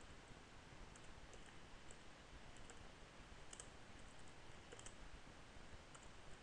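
Faint, scattered computer keyboard key clicks while code is typed: about ten irregular taps, a couple of them in quick pairs, against near-silent room tone.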